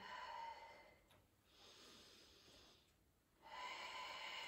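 Faint breathing of a person exercising: two soft airy breaths with a fainter one between them, paced with a slow, effortful resisted leg push.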